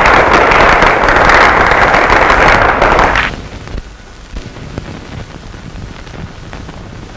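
A group clapping, dense and loud, which cuts off about three seconds in. A low hiss with faint scattered crackles from an old film soundtrack follows.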